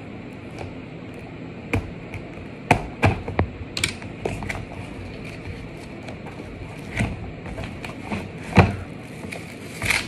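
Cardboard box and plastic packaging handled by hand as a gorilla tripod is unboxed: irregular taps, scrapes and crinkles as the box is opened and the tripod in its plastic sleeve is pulled out.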